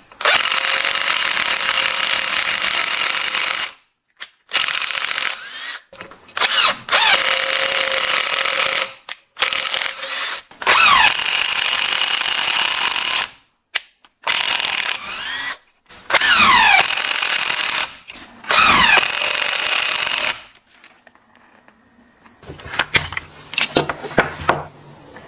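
Makita TW122D cordless electric screwdriver's motor run in about eight short bursts, each starting abruptly and winding down with a falling whine. Near the end, a quieter low hum with a few clicks.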